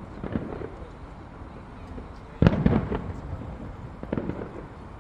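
Aerial fireworks shells bursting: one loud bang about halfway through with a rumbling tail, and weaker bangs near the start and near the end.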